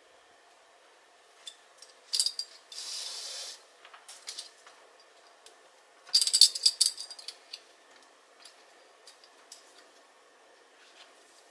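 Handling and hand-stitching noises on an embroidered yarn bag: scattered light clicks, a short cluster of clicks followed by a steady hiss of about a second, then a louder burst of crisp rustling and clicking about six seconds in.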